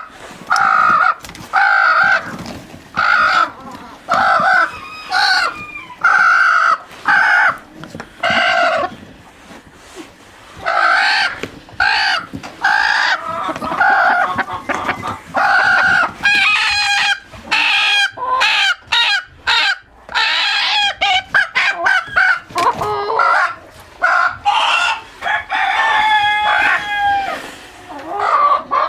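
Chickens clucking loudly in a long run of short, repeated calls, with a longer drawn-out call near the end.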